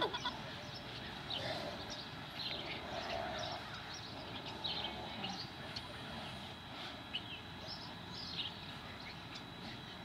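Oregon Mini Geese giving soft, short calls, with brief high chirps scattered throughout.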